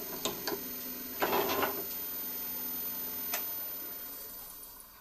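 Wood lathe running with a steady hum while a drill bit in a hand-held chuck is withdrawn from the spinning blank, with a couple of clicks and a short scraping clatter. A little after three seconds in, the lathe is switched off and its hum fades as it spins down.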